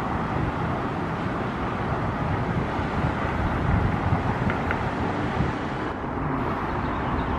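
Steady rumble of distant road traffic, with wind buffeting the microphone.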